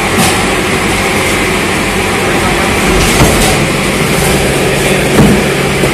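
A loud, steady engine drone with a low hum, and a few dull thuds of cardboard cartons being handled.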